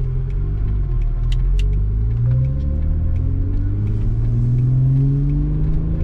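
Audi B5 S4's 2.7T V6 engine heard from inside the cabin, pulling under partial throttle with its note rising in pitch twice. It pulls smoothly with no misfire, the sign that the partial-throttle misfire around 2500 rpm has been cured.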